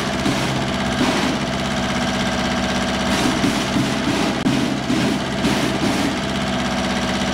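Washout water gushing and splashing out of a washout plug hole in a steam locomotive boiler barrel, over an engine running steadily.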